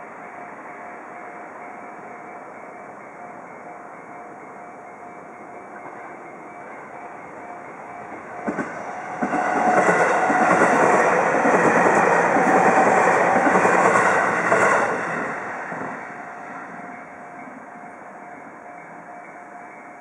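An electric train passes over a level crossing, rising to a loud rush of wheels on rail with repeated clicks from the rail joints from about eight seconds in, then fading after about fifteen seconds. Under it, the crossing's warning bell sounds a steady ringing tone throughout.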